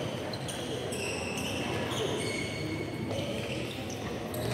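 Badminton hall during practice on several courts: short high-pitched squeaks of shoes on the court floor and the hits and thuds of play, with voices in the background.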